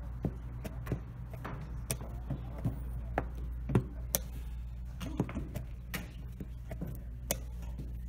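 Plastic chess pieces knocked down on a roll-up vinyl board and the buttons of a digital chess clock pressed, one after another in a fast blitz game: about a dozen sharp clicks and knocks, the loudest a little before halfway, over a steady low hum.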